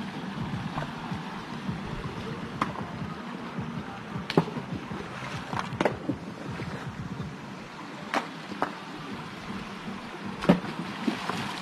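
Shallow creek water running over rocks, a steady rush, with several sharp knocks scattered through it, the loudest near the end.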